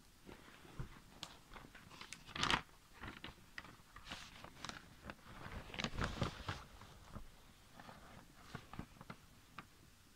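Paper and cardboard record sleeves rustling and crinkling as vinyl records are handled, in a run of short crackles with the loudest crunch about two and a half seconds in.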